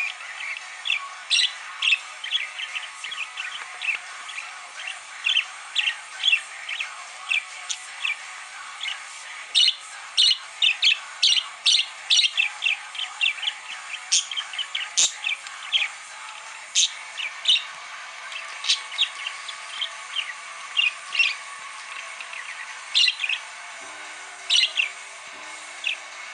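Budgerigar warbling: a fast, unbroken chatter of short, high chirps and squeaks, several a second.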